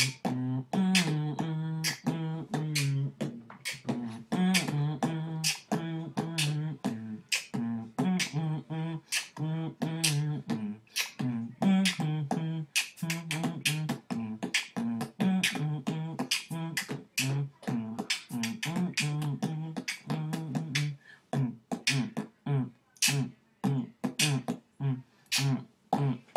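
Vocal beatboxing: sharp mouth-made drum hits in a steady rhythm with a hummed, pitched bass line held between them. Toward the end the hummed notes thin out and the hits come in a more clipped, gapped pattern.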